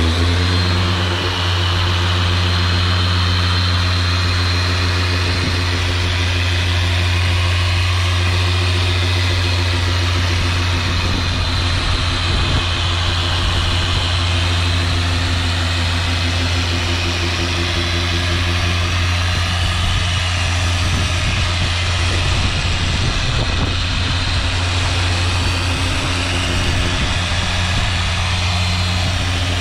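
Dual action polisher with a foam pad running at a raised speed setting, buffing finishing polish into boat gelcoat: a steady electric-motor hum whose higher tones waver slightly in pitch.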